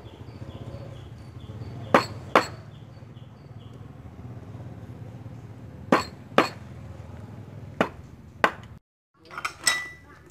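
Kitchen knife chopping raw pork on a round wooden chopping board: about six sharp knocks of the blade against the wood, coming in pairs a fraction of a second apart. Near the end come a few short metallic clinks with a brief ringing tone.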